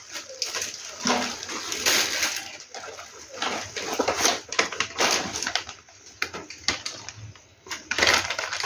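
Plastic bags and a snack wrapper crinkling and rustling as they are handled, in irregular bursts, with a louder burst near the end.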